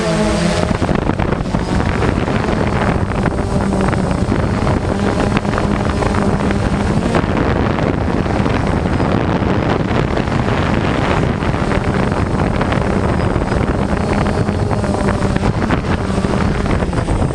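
Quadcopter's electric motors and propellers running steadily in flight, a constant hum under heavy wind noise on the microphone.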